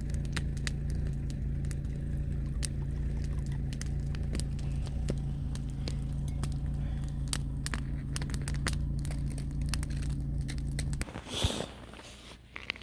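A steady low mechanical hum, like a motor running, with scattered small clicks and crackles over it; the hum cuts off about eleven seconds in and a sharp knock follows.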